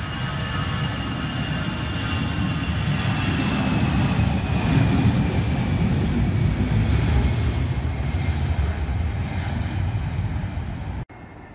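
easyJet Airbus A319's twin CFM56 jet engines at take-off power during the departure roll: a deep rumble that builds to its loudest about halfway, with a high fan whine gliding down in pitch as the jet passes. The sound cuts off abruptly near the end.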